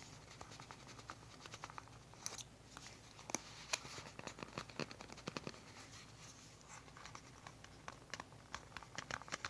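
Scattered small clicks and scratches of fingers handling cardboard phone packaging, picking at a small item wedged tightly in its slot.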